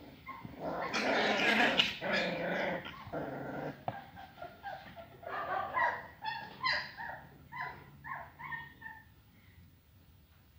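Ridgeback puppies play-fighting: a few seconds of loud growling, then a run of short, high-pitched yips and whimpers that fade out near the end.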